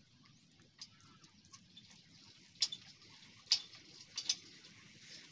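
Hand mixing rice and curry on a metal plate while eating: scattered sharp clicks and light scrapes, the loudest a little after two and a half seconds and three and a half seconds in, followed by a quick pair.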